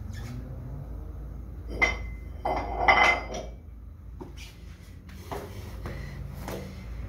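Ab wheel roller clinking and knocking as it is handled and set down on the floor: a sharp clink about two seconds in and a cluster of louder clinks around three seconds, then softer scattered knocks.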